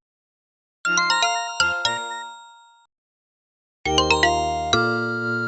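Two electronic chime jingles from the LG Hom-Bot Square robot vacuum's built-in sound set. About a second in comes a quick run of bell-like notes that rings out and fades. About four seconds in comes a fuller melody over low held notes that is still sounding at the end.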